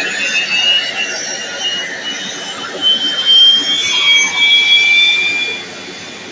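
Aircraft turbine engine whining with a high hiss, its pitch sliding slowly; it gets louder partway through, then drops off sharply near the end.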